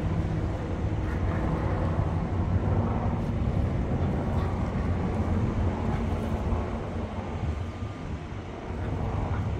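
Steady low engine rumble, easing off a little past the middle and rising again near the end.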